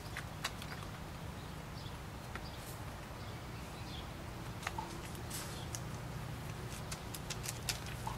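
Young puppies moving about, making scattered light ticks and taps, with a few faint short squeaks, over a steady low hum.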